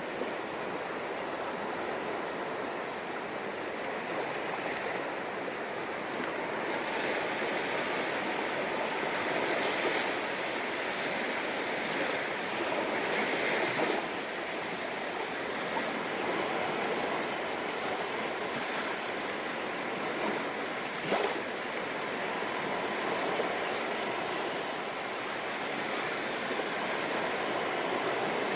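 Sea waves washing on the shore in a steady surge, now and then swelling louder. There is one short knock about two-thirds of the way through.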